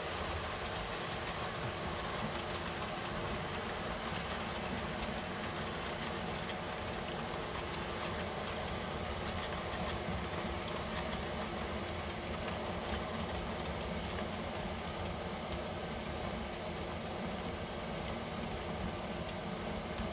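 Model train of flat wagons rolling along the layout track behind a Bachmann Class 66 model locomotive: a steady rolling rumble of small wheels on the rails, with a few faint clicks.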